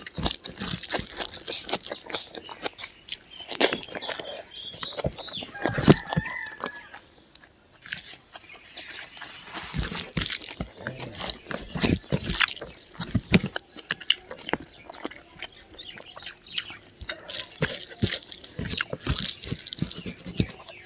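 Close-miked chewing of spicy pork and rice: wet lip-smacking, crunching and clicking bites, fairly loud. A rooster crows briefly in the background about five seconds in.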